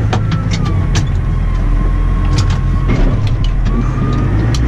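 Massey Ferguson 6480 tractor's six-cylinder diesel running steadily under way, heard from inside the cab, with scattered sharp ticks and a faint whine over the engine drone.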